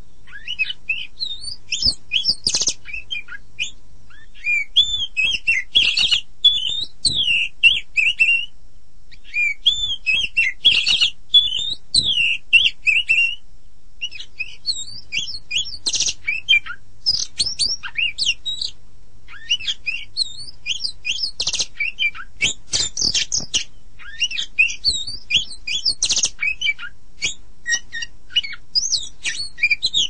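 Oriental magpie-robin singing a fast, varied song of clear whistles, slurred notes and sharp chirps. The phrases last a few seconds each, with brief pauses between them.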